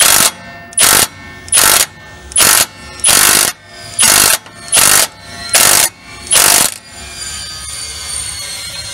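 Impact wrench hammering in short trigger bursts, nine in about seven seconds, then a fainter steady whir near the end. It is tightening a nut over a spacer to pull a new wheel stud through the hub until the stud's head seats against the hub.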